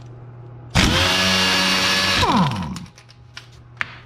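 A handheld electric power tool on a 19 mm socket spins up, runs for about a second and a half on a rusted sway bar link nut, then winds down with a falling pitch as the trigger is let go; the nut breaks loose.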